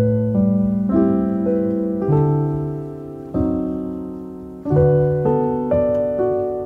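Background piano music: slow chords struck every half-second to second, each ringing and fading, with a change of chord about two seconds in and again near the end.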